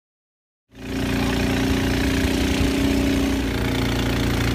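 Long-tail boat engine running loud and steady under way, cutting in suddenly under a second in.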